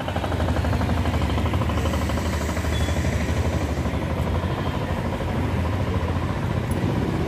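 A small vehicle engine idling, a fast, even clatter that runs on steadily, over street noise.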